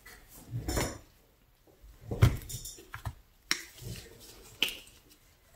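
Several short knocks and clatters as plastic paint bottles and a paint tube are handled and set down on a plastic-covered table, the loudest about two seconds in.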